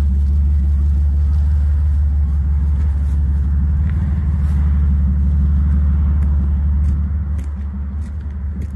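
Large truck engine idling: a steady low rumble, a little quieter near the end.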